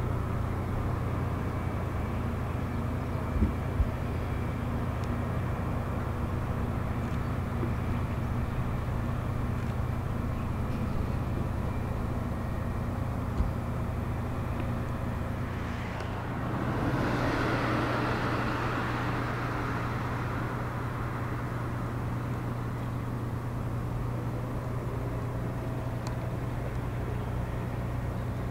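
Steady low machinery hum, typical of a diesel engine or generator running. Two sharp knocks come about three and a half seconds in and another near the middle. Just past halfway a wider wash of noise swells up and fades over a few seconds.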